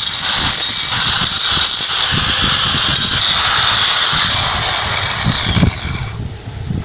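Angle grinder grinding down the weld on a steel wheel rim's centre disc. About five and a half seconds in it stops grinding and its whine falls as the disc spins down.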